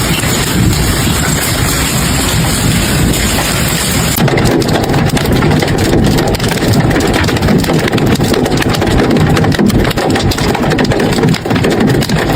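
Heavy hail pelting down: a loud, dense clatter of countless hailstones striking hard surfaces, with a deep rumble underneath. The sound changes abruptly about four seconds in, becoming a sharper rattle of many separate impacts.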